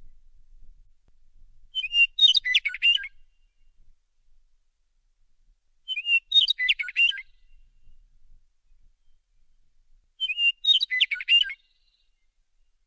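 Meadowlark singing: three songs about four seconds apart. Each opens with a short whistled note and breaks into a quick jumble of whistled notes, lasting about a second.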